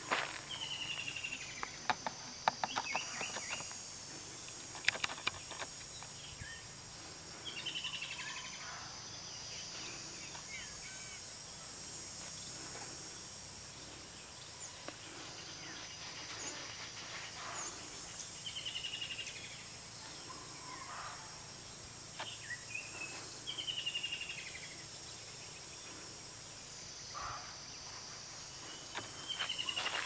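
A steady high insect drone, with a bird repeating a short falling call every few seconds and scattered sharp clicks.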